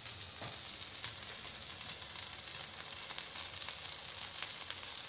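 Masala-coated fish pieces shallow-frying in oil on a flat tawa, a steady sizzle with scattered small crackles and pops.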